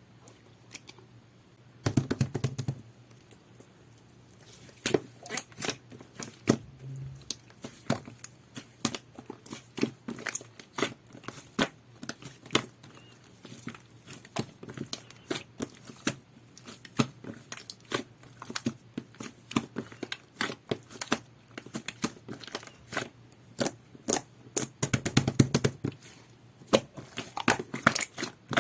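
Jelly-textured slime being squished and pressed by hand, making a run of sticky clicks and pops. The sounds bunch together about two seconds in and again near the end.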